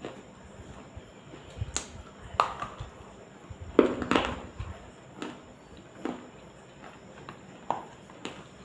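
Close-up mouth sounds of chewing a soft piece of black clay that has been soaked for two days: a string of short wet crunches and smacks, about one a second, the loudest pair about four seconds in.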